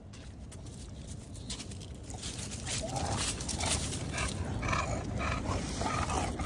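English bulldog panting with its tongue out, the breathing getting louder about halfway through.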